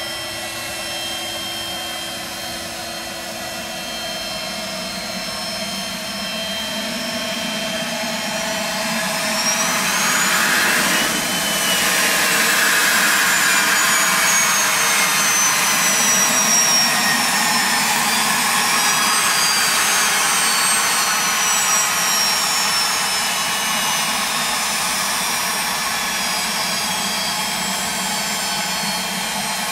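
Pilatus PC-24's two Williams FJ44-4A turbofans whining at taxi power as the jet moves close past. The sound swells to its loudest about ten seconds in, with the whine sliding up and then down in pitch as the jet turns by, then eases slightly.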